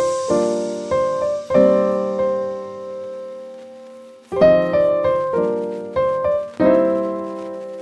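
Background piano music: chords struck and left to ring, a long ringing chord in the middle, then a few more chords near the end.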